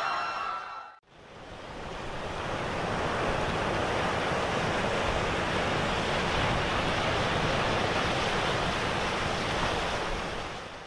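Steady wash of sea-water noise, fading in over a couple of seconds and cutting off near the end. A crowd's clamour fades out about a second in.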